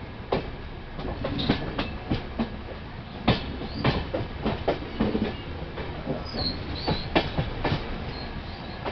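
Train wheels clattering over points and rail joints, heard from aboard the moving train: irregular sharp clicks and knocks over a steady rolling rumble, with a few brief high squeaks about two-thirds of the way in.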